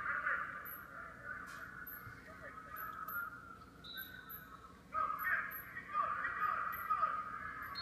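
Spectators yelling at a wrestling bout, heard through a TV or computer speaker, growing louder about five seconds in.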